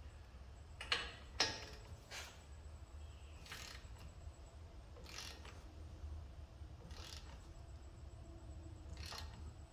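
Ratchet of a torque wrench clicking as a suspension nut is drawn tight: separate sharp clicks every second or two, the two loudest close together about a second in.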